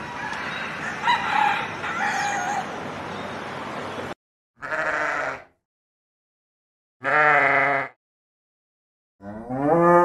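Rooster crowing over a steady outdoor background hiss for the first four seconds. After a gap, a sheep bleats in separate calls about a second long, and the last call rises in pitch.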